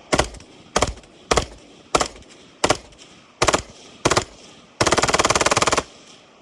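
M16 rifle gunfire sounds: about seven single shots, one every half-second or so, then a burst of rapid automatic fire lasting about a second.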